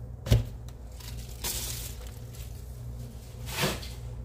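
A single sharp knock, then two brief hissing noises about two seconds apart, over a steady low hum.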